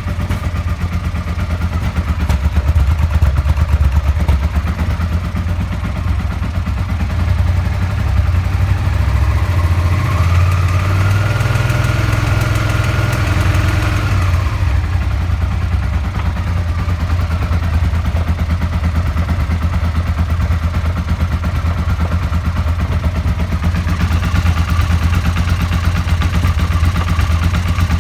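Suzuki SV650's V-twin engine idling, with the revs raised and held for a few seconds about ten seconds in, then dropping back to idle. The knock in it is a worn engine bearing shell.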